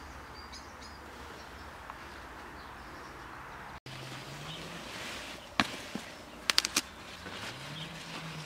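Quiet garden background with faint bird calls. After the first half comes a low hum that rises in pitch twice, and a few sharp clicks and knocks a little past the middle.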